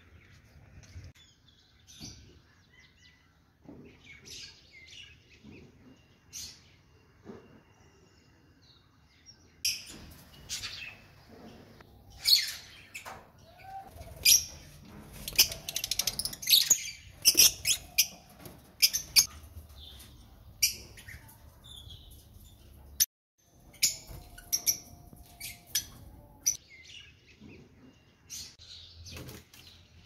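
Caged lovebirds and parrots chirping: a stream of short, sharp, high-pitched chirps, sparse at first and busiest through the middle stretch.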